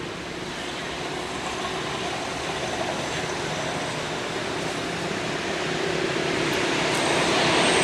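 Steady distant engine rumble that grows gradually louder.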